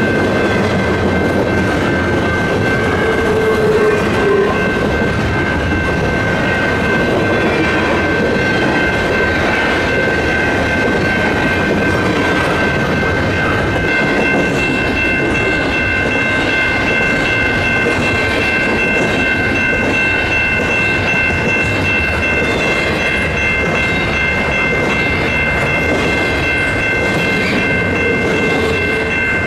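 Double-stack intermodal freight cars rolling past at steady speed: a continuous rush and rumble of wheels on rail. Over it ring steady high tones, and a third, higher tone joins about halfway through.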